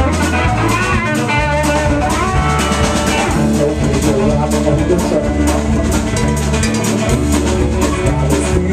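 Live blues-rock band playing an instrumental passage: electric guitar over bass notes and a drum kit keeping a steady beat.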